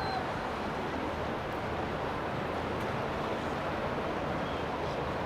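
Steady low hum of a boat engine running, mixed with wind and water noise.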